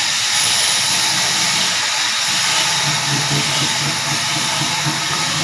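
Large sawmill machinery running, a steady loud hiss over a low hum.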